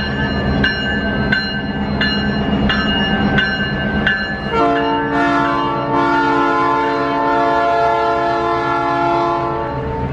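Canadian Pacific diesel locomotive: its bell ringing about one and a half strikes a second, then its air horn sounding one long chord of several tones from about halfway through until just before the end, over the steady low rumble of the engine.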